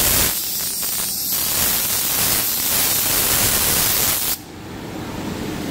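CNC router machinery running with a loud, steady hiss of rushing air. About four seconds in the hiss drops sharply as part of the machinery shuts off, leaving a quieter steady hum.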